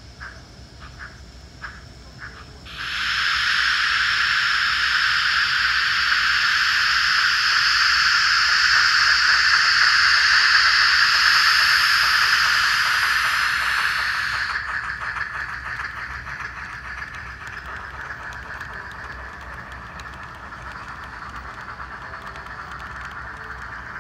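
Digital steam sound from LokSound 4 DCC decoders in two HO-scale steam locomotive models, a KATO C56 and a Tramway C12, playing a C11 sound set. Slow exhaust chuffs, then about three seconds in a loud steam hiss sets in. About halfway through the hiss eases back to a fainter hiss over quicker chuffing as the train moves off.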